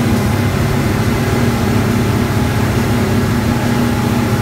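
Twin outboard motors driving a boat at speed, a steady engine hum over a constant rush of wind and water from the wake.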